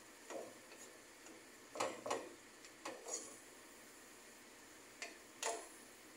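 Wooden spatula knocking and scraping against a nonstick pan while stirring ground pork in tomato sauce: irregular strokes, the loudest around two seconds in and again near the end.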